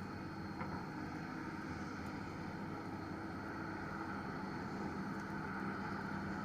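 Heavy diesel engine running steadily at an even pitch, a constant drone.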